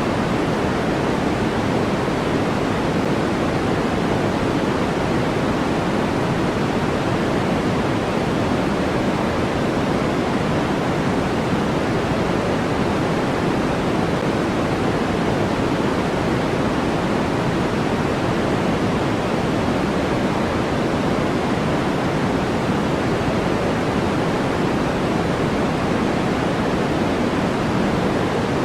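Steady, unchanging generated noise from a white-noise sleep track. It is a soft, dull rush heavier in the low-mids than a bright hiss.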